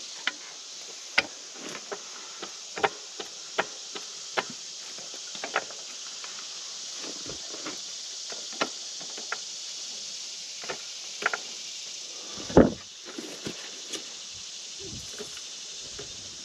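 Steady high insect chorus, with scattered sharp clicks and knocks at irregular intervals and one louder thump about twelve and a half seconds in.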